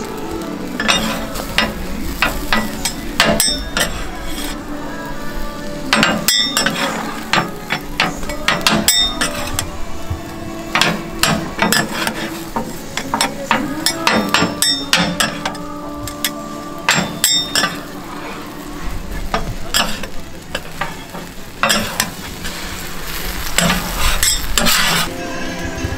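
Steel spatulas clacking and scraping on a hot flat-top griddle while cabbage okonomiyaki fries and sizzles, with frequent sharp metal clacks throughout.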